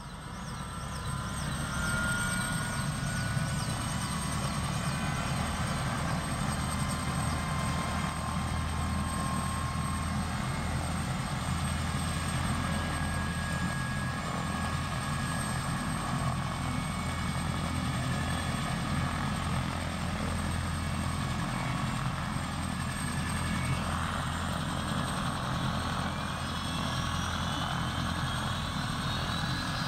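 Military helicopter's turbine engines running on the ground, a steady low throb with thin whines above it. From about six seconds before the end, a whine climbs steadily in pitch.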